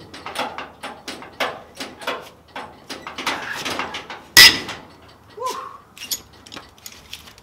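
Breaker bar and socket straining on a tight lug nut: a run of metallic clicks and rattles, then one sharp, very loud crack a little over four seconds in, followed by lighter clinks as the bar is shifted. The nut was hard to free.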